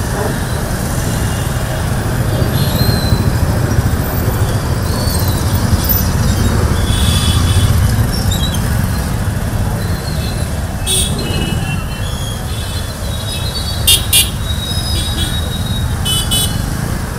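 A column of small commuter motorcycles and scooters riding past with engines running together in a dense low rumble, and short horn beeps sounding now and then.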